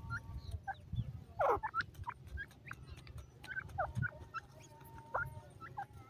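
Grey francolins calling softly at close range: a scattered run of short chirps and peeps, with one louder call sliding downward about a second and a half in.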